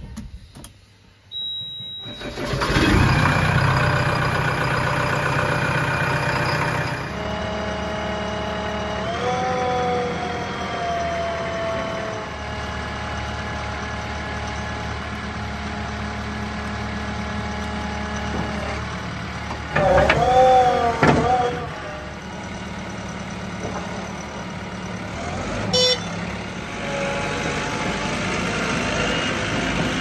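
A short beep, then the JCB 3DX backhoe loader's diesel engine cranks and starts on the key about two seconds in and keeps running. Its note rises and falls as the machine works, loudest about twenty seconds in.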